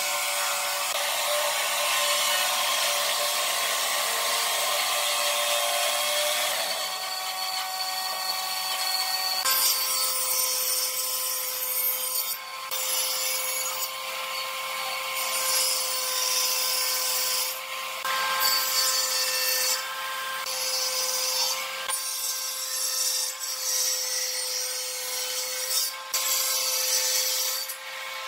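A power tool working wood: a steady motor hum under a hissing, rubbing cut. Its pitch and texture change about a third of the way in, with several brief breaks after that.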